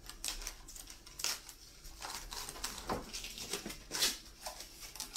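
Clear plastic cling film being pulled off its roll and stretched over a glass baking dish, crackling and rustling in irregular bursts.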